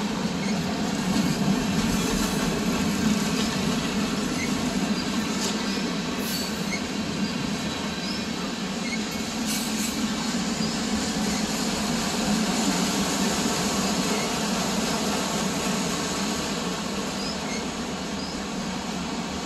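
CPKC freight train #49 rolling past, its cars making a steady noise of wheels running on rail that holds an even level throughout.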